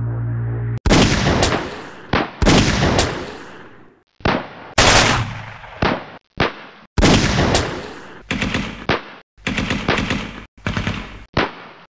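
Gunfire from a battle reenactment, from rifles and a light machine gun firing blanks: single shots and short rapid bursts with echoing tails. It is cut into snippets that start and stop abruptly, with brief silences between. A low electronic hum ends just under a second in.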